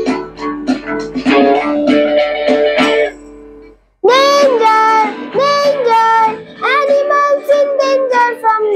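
A song's strummed plucked-string accompaniment plays for about three seconds and breaks off briefly. A child's voice then sings long notes that slide in pitch over lighter plucked backing.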